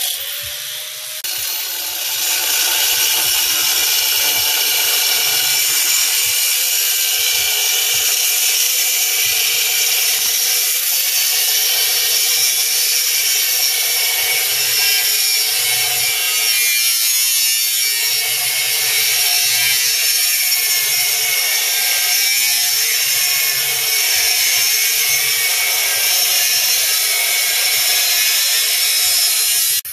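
Angle grinder with a cut-off wheel cutting through steel exhaust tubing: a loud, steady, high-pitched grinding with the motor's whine underneath. It eases briefly about a second in, then runs evenly.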